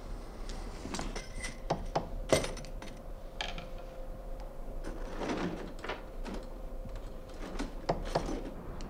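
Steel scissor halves strung on metal rods clinking and rattling as they are handled, in irregular clicks and knocks.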